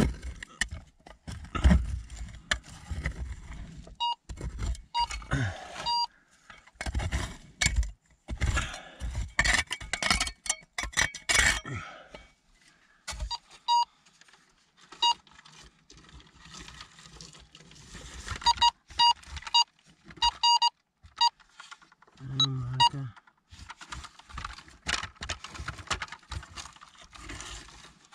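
Scraping and clattering of a hand trowel digging in stony dirt, followed by a metal detector giving short, repeated beeps as its coil is swept over the dirt beside a rock. The signal comes from a rock that the owner takes to contain ferrous material.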